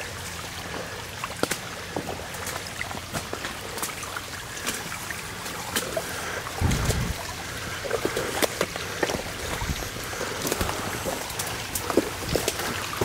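Shallow rainwater runoff trickling and running down a narrow spillway channel over moss and debris, with scattered clicks and rustles from walking through brush and a brief low thump about halfway through.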